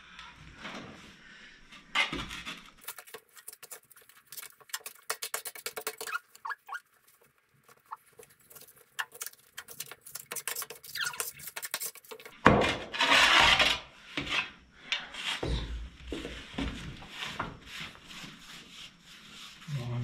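Steel spade digging and scraping through sandy soil and stones: a run of faint scrapes and clicks, with a louder crunching scoop about halfway through and more scrapes after it.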